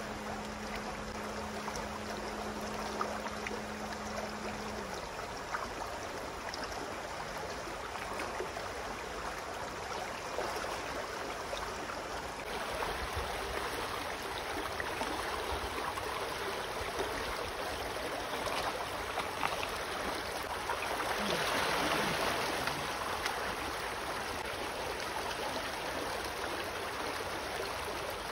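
Shallow rocky stream running steadily, a continuous rush of water over stones. It swells louder for a couple of seconds about three-quarters of the way through.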